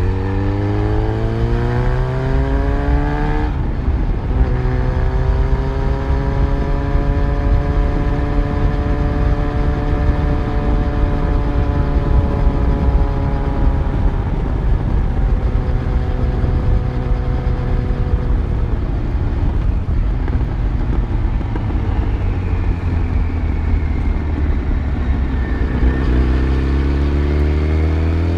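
Yamaha FZ1's inline-four engine heard from the motorcycle while riding: the pitch rises under acceleration, drops sharply about three and a half seconds in as a gear is changed, then holds and slowly eases while cruising, and climbs again under acceleration near the end.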